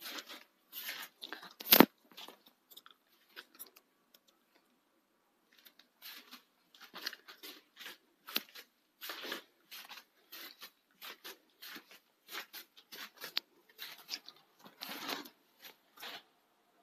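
Handling noise from a phone carried by hand while filming: irregular crackles, rubs and light taps, with one sharp knock under two seconds in.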